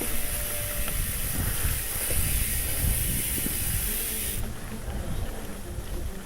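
Trek Fuel EX full-suspension mountain bike riding a dirt trail, heard from a camera on the bike or rider: a steady low rumble of tyres and wind with a few small clicks and rattles. A high hiss drops away about four seconds in.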